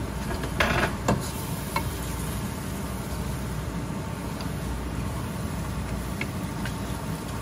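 Onion-tomato masala frying in a pot while it is stirred with a wooden spatula, over a steady low hum. About half a second to a second in, the spatula scrapes and knocks against the pot a couple of times, and there are a few lighter taps later.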